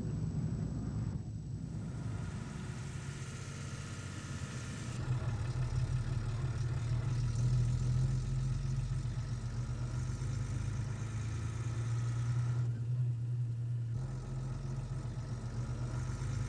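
An engine running steadily at idle with a low hum. The sound changes abruptly about five seconds in and again near fourteen seconds.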